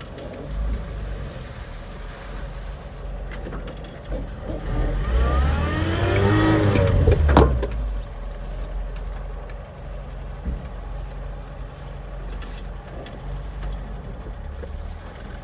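Toyota 22R pickup's four-cylinder engine running steadily, revving up for a couple of seconds about a third of the way in and then dropping back, as the truck drags logs on a rope. A sharp knock comes as the revs peak.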